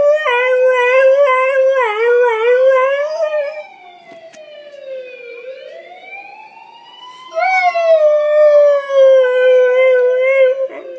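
Husky howling, a long wavering howl that stops about three and a half seconds in. A fainter siren wail then glides down and back up, and the husky howls again from about seven and a half seconds, its pitch sliding down and levelling off.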